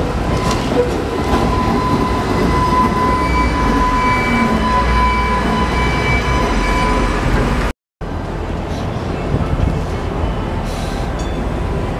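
A red streetcar rolls past close by: a low rumble under a steady high whine, with a lower tone falling in pitch partway through. After an abrupt cut near the end, a duller steady rumble from farther away.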